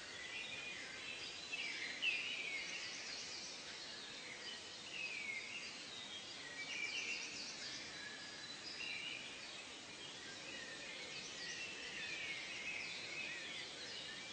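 Wild birds calling in a forest soundscape: many short chirps and falling, sweeping calls, one after another, over a faint steady hiss. The loudest call comes about two seconds in.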